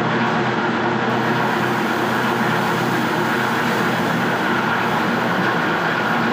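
Motor-driven agricultural seed-processing machine running steadily with a loud, even mechanical hum while seed is fed into its hopper.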